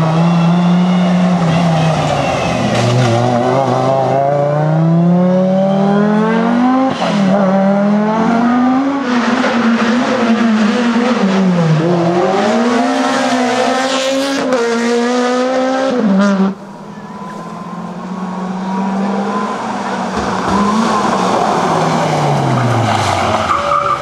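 Rally cars driven hard through a tight corner one after another, their engines revving up and falling away with each gear change and lift, with tyre squeal. About two-thirds of the way through, the sound drops off suddenly, and another car's engine approaches and rises.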